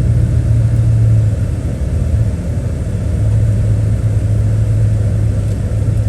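A 2000 GMC Sierra 1500 pickup driving, heard from inside the cab: a steady low engine and road drone that eases a little about a second and a half in, then comes back up.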